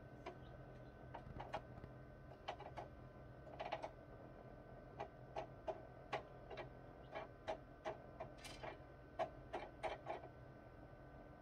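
Newly hatched chick pecking at eggshells in an incubator: irregular sharp taps, about two a second, over the incubator's steady low hum.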